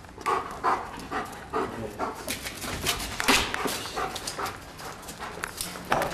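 German shepherd making short, repeated vocal sounds, several a second in the first two seconds, among sharp clicks and scuffs of movement on a concrete floor; the loudest knock comes a little over three seconds in.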